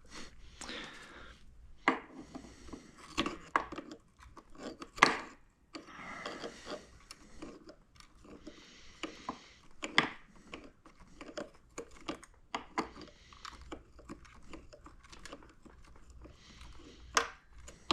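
Hands working small plastic and metal parts of a scooter's front blinker assembly: scattered sharp clicks and taps, a few louder ones, with rustling and crinkling between them.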